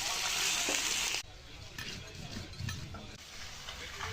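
Food sizzling loudly in hot oil in a cooking pan, cutting off abruptly about a second in. Then quieter scattered clicks and scrapes follow.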